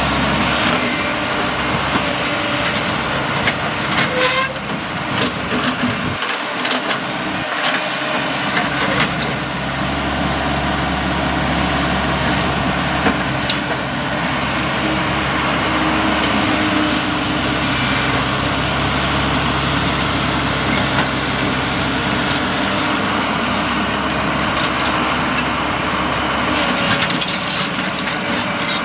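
Caterpillar 312 hydraulic excavator's diesel engine running steadily under working load as the machine swings and moves its bucket, with scattered short knocks.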